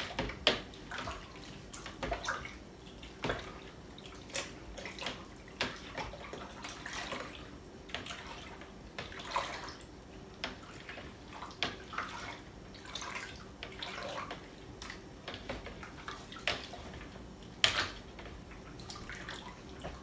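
Honey-and-cherry mead must being stirred hard with a spatula in a plastic bucket: irregular sloshing and splashing strokes with a few sharper knocks, the loudest near the end. It is being agitated to get oxygen in for the freshly pitched yeast.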